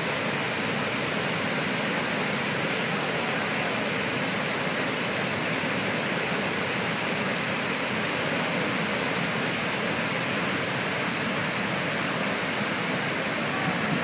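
Niagara's Horseshoe Falls: a steady, unbroken rush of a huge volume of water plunging over the brink into the gorge.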